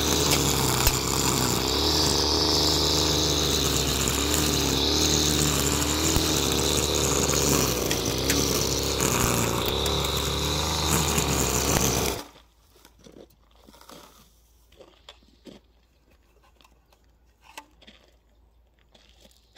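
String trimmer engine running at a steady speed with a slightly wavering pitch, then cut off abruptly about twelve seconds in. After that, only faint scattered clicks.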